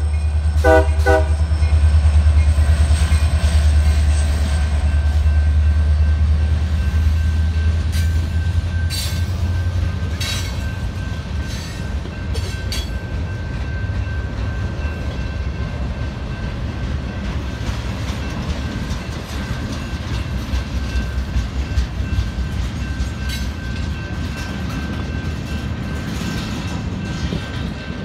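Union Pacific freight train passing a grade crossing. The diesel locomotive's horn cuts off at the start, followed by two short toots about a second in. The locomotives' deep engine rumble fades over the first ten seconds or so, leaving the rolling wheels and occasional clanks of the passing freight cars, with the crossing bell ringing steadily throughout.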